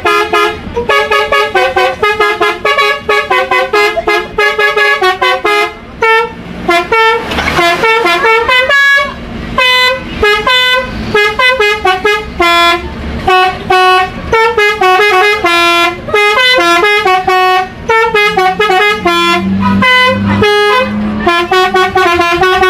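Tourist bus telolet horn played as a fast melody: a rapid run of short, stepped multi-tone horn notes, kept going without a break.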